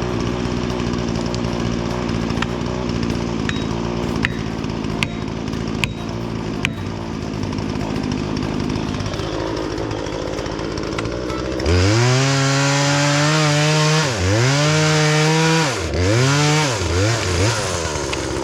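A steady engine hum with a few sharp clicks, then, about two-thirds of the way in, a chainsaw revving hard. Its pitch dips and recovers several times as it bogs down in the cut.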